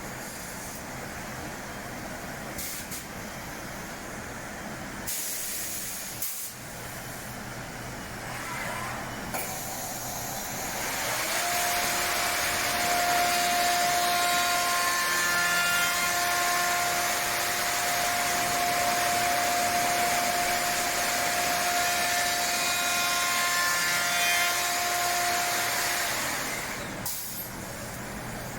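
SAOMAD Woodpecker Just 3500 CNC machining centre running, with a steady hiss of air. About a third of the way in a high, steady whine of the machine's spindle comes up, and the machine gets louder. The whine holds for about fifteen seconds and dies away near the end.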